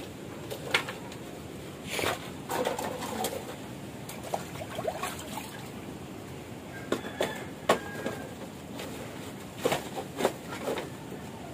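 Empty plastic bottles and containers knocking and clattering as they are handled and dropped into a sack: scattered sharp clacks, several in quick succession near the start, around two seconds, around seven to eight seconds and near ten seconds.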